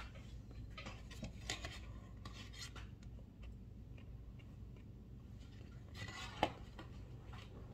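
Faint scattered rustling and mouth noises from a person chewing a hot pepper, with one sharp knock about six and a half seconds in.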